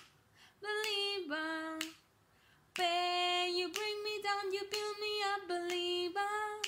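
Pop song with a woman singing held notes in short phrases, with two brief pauses: one near the start and one about two seconds in.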